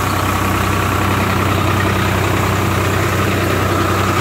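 Swaraj 744 FE tractor's three-cylinder diesel engine running steadily while it powers a wheat thresher, the engine's low hum mixed with the thresher's even whirring. The level holds constant.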